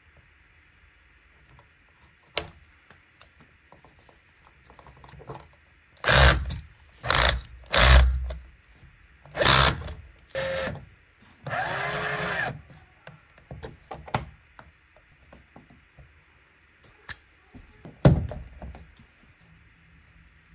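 Hand-tool and handling noise from wiring an electrical outlet: scattered clicks, then a run of loud knocks and scrapes. About halfway through, a small power drill runs for about a second.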